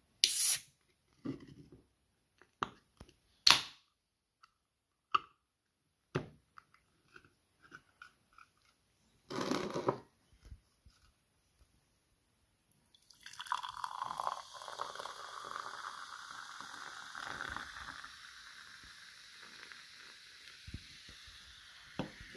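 Aluminium soda can handled and opened, with a few sharp clicks and short hisses. A little past halfway, carbonated fruit soda is poured into a glass tumbler: a pouring splash that settles into a steady fizz of bubbles.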